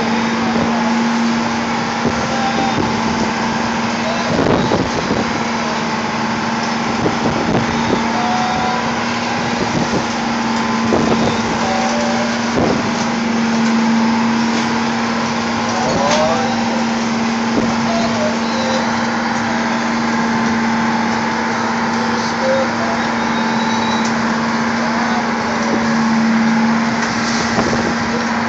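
A boat's engine running with a steady hum under a constant rush of wind and sea noise, broken by occasional short knocks.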